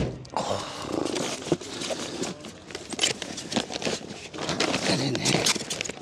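Handling noise as polystyrene packing pieces and plastic bags are stuffed into an insulated bag: irregular rustling, crinkling and scraping, with scattered knocks.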